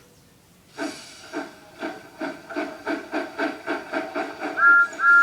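Steam locomotive starting off, chuffing faster and faster, then sounding its whistle in two toots near the end.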